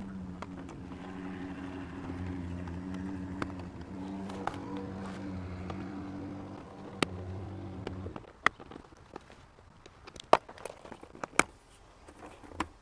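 Plastic clicks and snaps of a flathead screwdriver prying the rear dome light lens off a Jeep Cherokee XJ headliner, louder and more frequent near the end. A steady low hum runs underneath and stops about eight seconds in.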